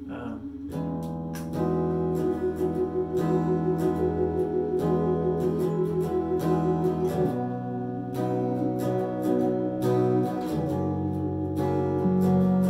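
Electric guitar played through an amplifier with a keyboard, the two playing slow sustained chords together; music starts just under a second in, with one note pulsing quickly for a few seconds before the chords change.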